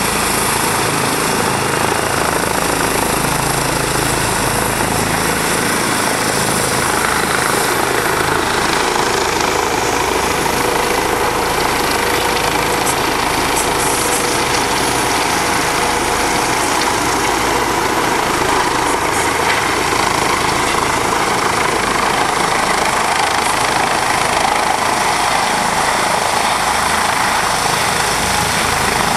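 Eurocopter EC135 air-ambulance helicopters with turbines and rotors running: a loud, steady helicopter noise.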